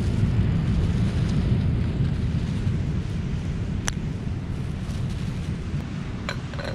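Wind buffeting the microphone as a steady low rumble, with a single sharp click about four seconds in.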